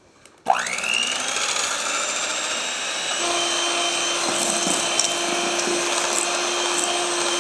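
Electric hand mixer switched on about half a second in, its motor whine rising quickly to a steady high speed as the beaters whip heavy cream in a stainless steel bowl.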